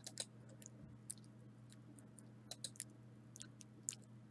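Near silence: a faint steady low hum with a few scattered faint clicks.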